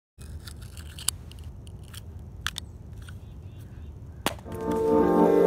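Low rumbling outdoor background with a few sharp clicks, about one second, two and a half seconds and four seconds in. Instrumental background music comes in about four and a half seconds in and becomes the loudest sound.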